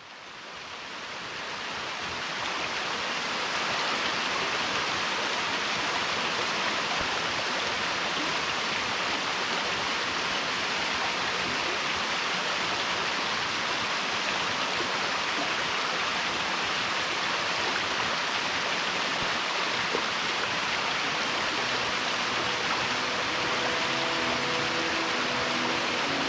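Steady rushing of a river's flowing water, fading in over the first few seconds. Faint musical notes come in near the end.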